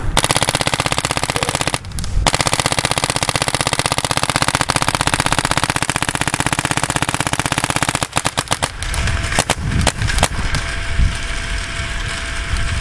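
Ego 08 paintball marker with a Virtue board firing on ramp: a long, rapid, even stream of shots with a short break about two seconds in. The stream stops about eight seconds in, and a few separate shots follow.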